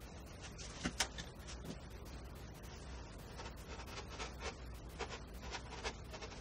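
Workbench handling noise, sped up: a quick run of small clicks and rustles from handling leather and tools, with a sharper click about a second in, over a steady low hum.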